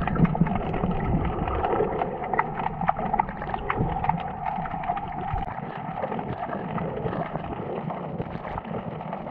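Underwater camera sound: a muffled, steady wash of water noise with many scattered short clicks and crackles.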